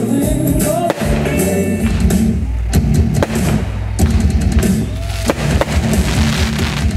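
Music with drums and guitar, loud and continuous, with sharp, irregular cracks and bangs of fireworks bursting through it.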